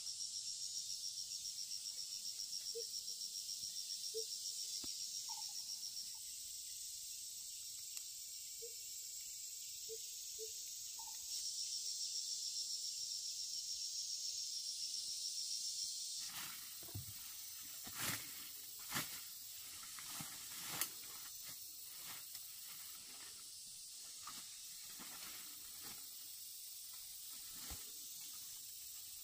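Insects shrilling: a fast-pulsing high-pitched drone that stops about six seconds in and starts again from about eleven to sixteen seconds, over a constant high hiss. From about sixteen seconds, leaves and stems rustle and snap as someone pushes through dense undergrowth, with a few sharper cracks.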